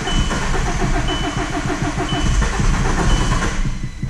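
Starter motor cranking the 2006 VW Golf's 1.9 TDI (BKC) diesel engine in a fast, even rhythm. The engine turns over but does not fire, and the cranking stops about three and a half seconds in. This is a no-start caused by the cam timing being out (fault code P0341, cam/crank correlation). A short high beep repeats about once a second.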